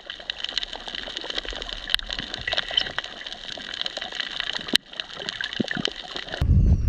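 A pot of water boiling, bubbling with many small crackling pops. Near the end it gives way abruptly to a louder low rumble.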